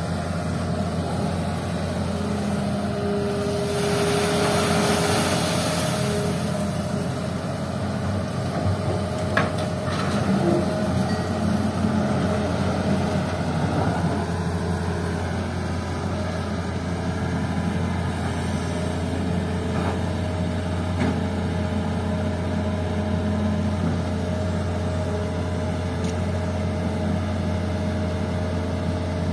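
Hitachi hydraulic excavator's diesel engine running steadily as it works, with a rush of hiss about four seconds in and two sharp knocks around ten seconds in.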